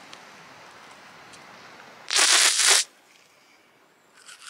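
Biting into a bread roll: one short crunchy burst about two seconds in, over a faint steady hiss. Near the end, the scrubbing of a toothbrush on teeth begins.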